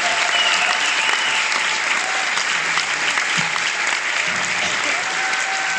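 Concert audience applauding steadily as a performer walks on stage.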